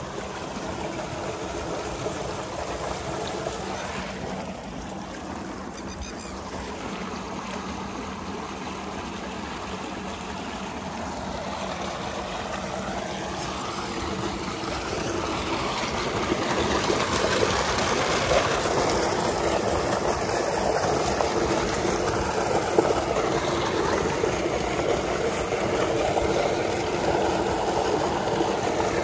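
Irrigation water rushing and splashing, from a tube-well pipe pouring into a basin and running along a concrete channel, with a steady machine hum underneath from the pump. The rush grows louder about halfway through.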